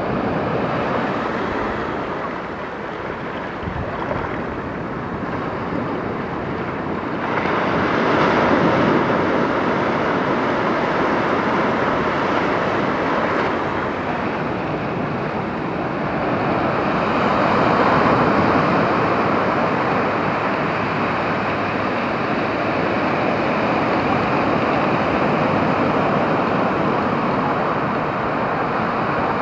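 Sea surf washing up onto a sandy beach: a steady rushing of breaking waves that swells louder about eight seconds in and again around eighteen seconds in.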